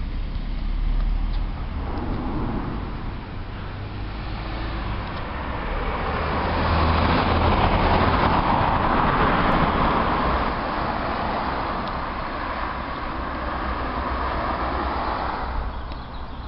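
Car driving past on the road under a concrete road bridge, its tyre and engine noise swelling to a peak about halfway through and fading slowly, over a steady low rumble of traffic.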